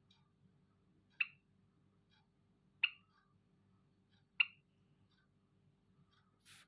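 Zebra finch giving short single calls: three loud ones about a second and a half apart, with fainter calls between them, then a brief hiss near the end.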